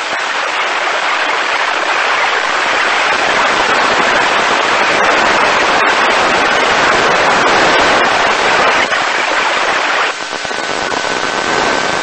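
Loud, steady radio static hiss from a NOAA Weather Radio receiver. About ten seconds in the hiss drops a little and a faint steady high tone comes through more clearly.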